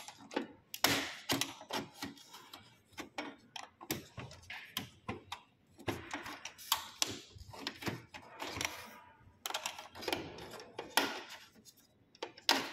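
Irregular clicks and short scrapes of a flat-head screwdriver working against the plastic side frame of a laser printer, pressing at the white release catch that lets the drum unit drop into place.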